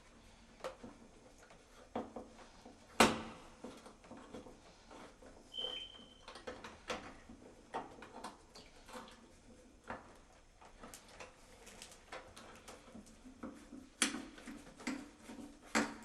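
Irregular clicks and knocks of hard objects being handled, with one sharp knock about three seconds in and two more strong ones near the end. A brief high squeak sounds around six seconds in.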